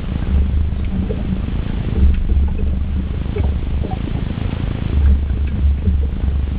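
Outboard motor of a rigid inflatable boat running at low speed, heard as a steady low rumble with wind buffeting the microphone in uneven surges.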